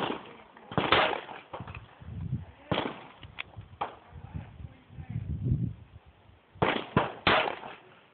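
Ruger Super Redhawk revolver firing .357 Magnum rounds: several sharp shots at uneven intervals, the last three in quick succession about a second apart or less.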